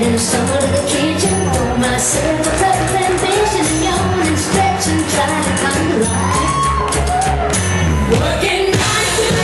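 Pop song with a female-sounding vocal and a steady dance beat played loud over a nightclub sound system, with some shouts from the crowd.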